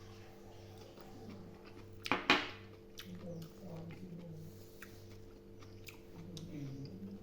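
A person chewing boiled pig intestines, with scattered small wet clicks of eating and a louder, brief noisy burst about two seconds in, over a steady low hum.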